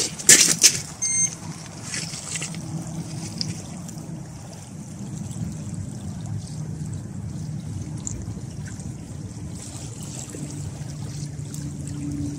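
Footsteps crunching on shoreline gravel in the first couple of seconds, then small choppy waves lapping at the water's edge over a steady low drone.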